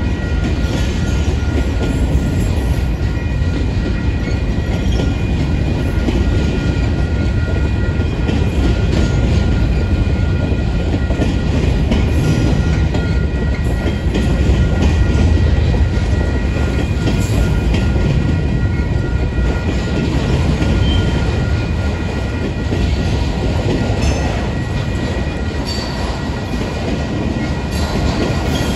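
Union Pacific freight train's cars rolling past: a steady heavy rumble of wheels on rail with clickety-clack. Steady high-pitched tones sit over the rumble.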